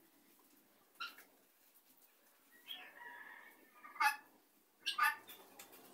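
Helmeted guineafowl calling: short, sharp, harsh calls about one, four and five seconds in, the last two close together, and a longer scratchy call around three seconds in.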